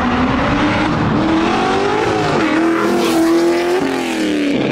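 Car engine revving hard, its pitch climbing and holding high, then dropping away sharply near the end.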